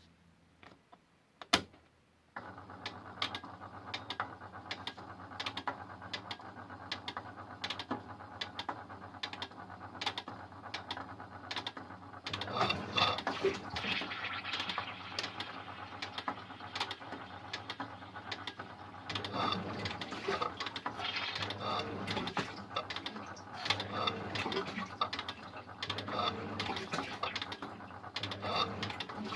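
Siemens Extraklasse washing machine running: a steady mechanical hum with a run of clicking and rattling, starting about two seconds in after a single sharp click, and getting louder about halfway through.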